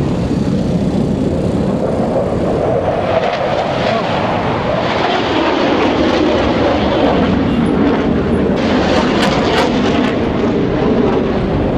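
Fighter jets flying overhead: a continuous, super loud jet roar that grows fuller and higher about three seconds in.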